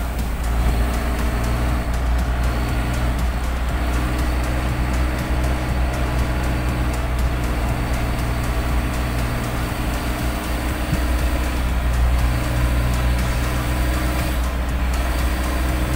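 A motor vehicle running steadily along a wet road, heard from inside the vehicle: a constant low engine hum under road noise.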